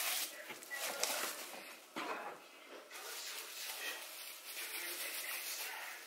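Plastic wrapping rustling and crinkling, with a few light knocks of things being handled in a plastic storage tote.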